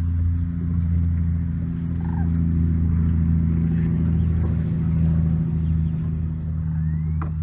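An engine running steadily at an even speed, a low, constant drone.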